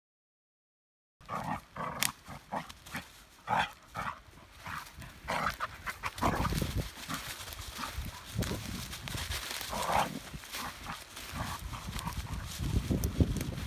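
Two Australian Cattle Dogs play-fighting: a quick run of short growls and barks starting about a second in, then paws scuffling and running through dry leaves with a few more yaps.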